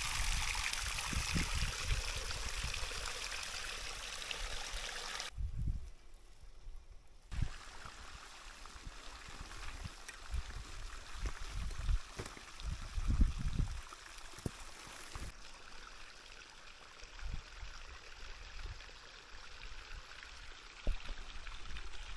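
Spring water running steadily into a wooden trough. The rushing drops out briefly about five seconds in and returns fainter, with scattered low thumps.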